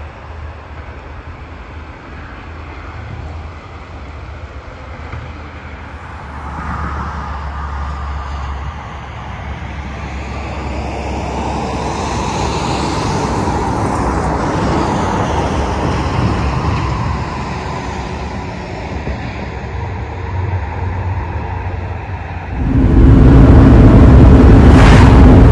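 Traffic passing on a road nearby: a steady hiss of tyres and engines that swells for several seconds and then fades. A few seconds before the end it gives way abruptly to loud, steady road and engine rumble heard from inside a moving car.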